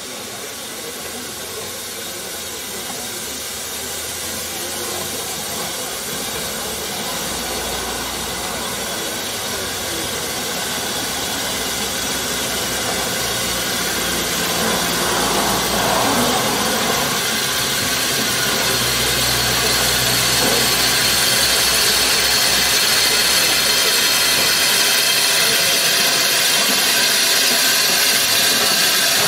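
Narrow-gauge steam locomotive Countess, a GWR No. 823 0-6-0 tank engine, hissing steam as it runs slowly up close. The hiss grows steadily louder as it draws alongside, over a low rumble.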